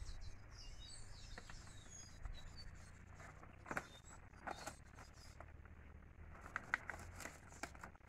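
Faint clicks and scrapes of barbed wire being twisted by hand around a wooden fence post as a broken fence is re-tied, the sharpest click about two-thirds of the way in. Small bird chirps in the first second and a half.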